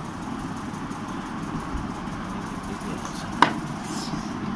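Steady background hum, with one sharp clink of tableware that rings briefly about three and a half seconds in.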